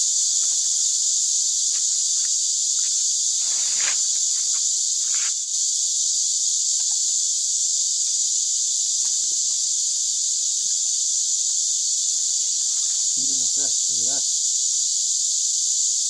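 A steady, high-pitched insect chorus, with a few light clicks and rustles of bamboo strips being threaded into a woven basket.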